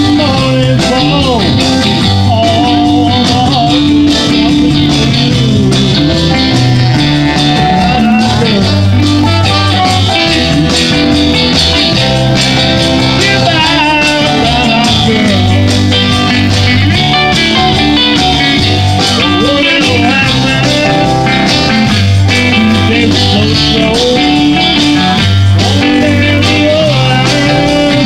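Live band playing loud amplified music: guitars, drums and keyboards, over a steady, repeating bass line.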